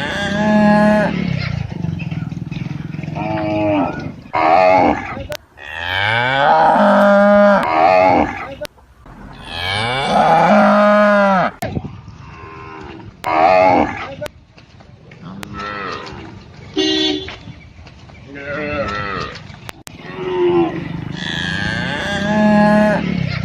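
Cattle mooing: a string of moos with short gaps between them, the longest and loudest two in the middle, one of them rising in pitch at its start.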